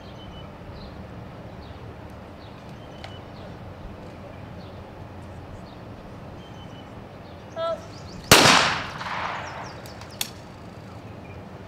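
A trap shotgun fires one shot at a clay target about eight seconds in, just after a short shouted call for the target, and the report rings out and fades slowly across the open range. The shot breaks the target. About two seconds later there is a single sharp click.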